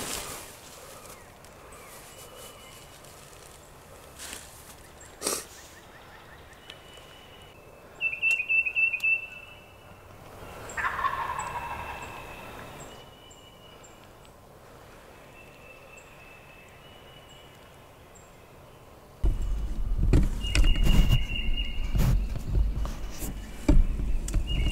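Wild turkey gobbler gobbling while strutting. Two gobbles come through, one at the very start and one about eleven seconds in, with a quick run of sharp, high notes about eight seconds in. From about nineteen seconds on, loud low rumbling and knocking noise close to the microphone takes over.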